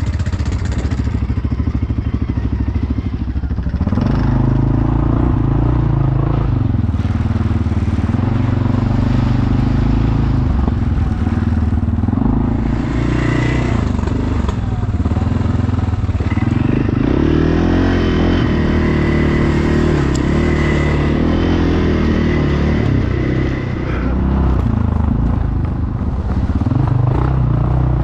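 ATV engine running while riding a trail, its pitch rising and falling with the throttle. It gets louder about four seconds in.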